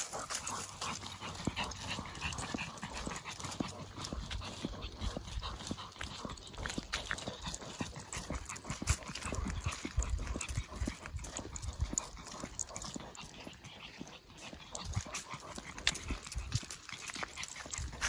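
Footsteps crunching on a gravel path strewn with dry fallen leaves, an irregular patter of small crunches, along with a Pekingese's heavy breathing as it hurries along on its leash.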